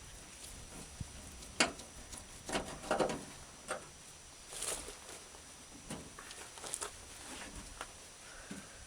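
Irregular light clicks, taps and short rattles of hand work on a truck door's window hardware, a screwdriver turning out screws and small metal parts being handled, with the clearest knocks about a second and a half in and around three seconds in.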